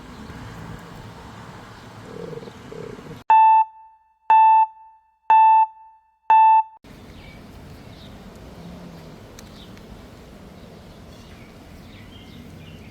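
Four loud electronic beeps at one steady pitch, each about a third of a second long and about one a second apart, starting about three seconds in. The background drops out completely between the beeps. Before and after them there is only a faint outdoor background.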